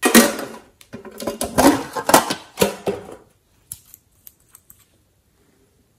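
Clattering and tapping as a small glass bottle of glitter nail polish is handled, then a few light clicks about four seconds in.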